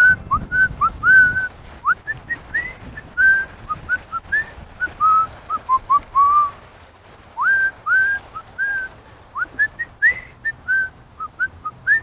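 A person whistling a tune in short, clear notes, many of them sliding up into the pitch, with a short break a little past the middle.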